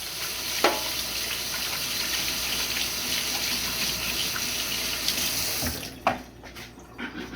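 Sink faucet running while hands are rinsed under it, shut off a little under six seconds in. A few light knocks follow near the end.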